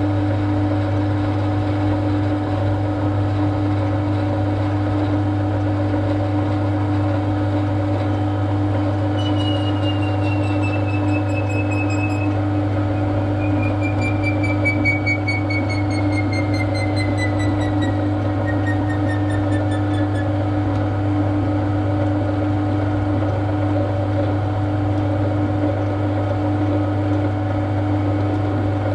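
Machine tool running steadily with a constant motor hum. From about 9 s to 20 s a thin high whistle slides slowly down in pitch.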